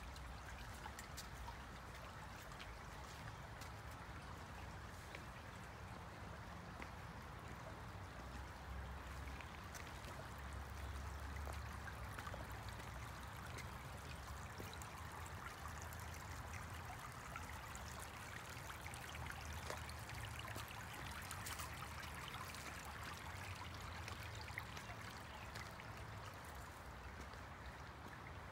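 Shallow stream trickling over rock ledges and stones: a faint, steady water sound.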